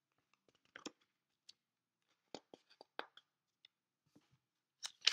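A paperback picture book handled in the hands, with faint scattered clicks and taps, then a page turned with a short paper rustle near the end, the loudest sound here.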